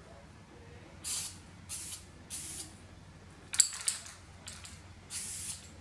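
Aerosol spray-paint can hissing in about six short bursts as a topcoat is sprayed onto a 3D-printed plastic part, with a sharp click at the start of one burst about three and a half seconds in.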